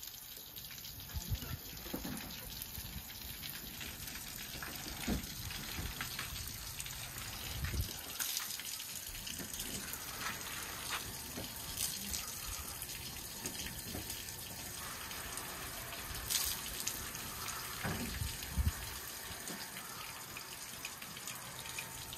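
Water spraying from a hose onto a fibreglass boat being washed, a steady hiss of running water with a few short low thumps.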